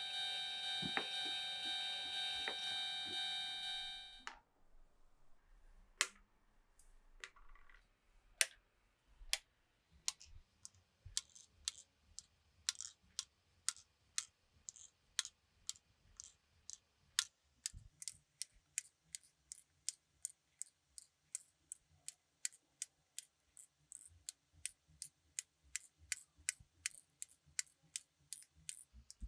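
A steady electronic tone cuts off about four seconds in. Then glass marbles click along a wooden marble run, sharp clicks that start sparse and grow steadily more frequent, reaching two or three a second.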